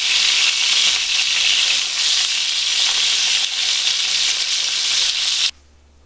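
Food sizzling steadily in a hot frying pan, cutting off suddenly near the end.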